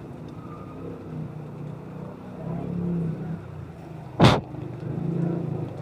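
Motor vehicle engines running in a city street, a low rumble that swells twice as vehicles come close. A little over four seconds in there is a single short, loud bang.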